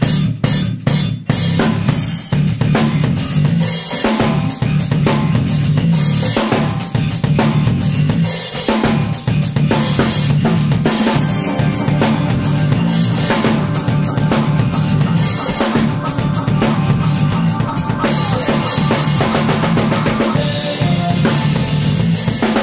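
Live band playing: busy drum kit with rapid kick and snare strokes over a sustained electric bass line.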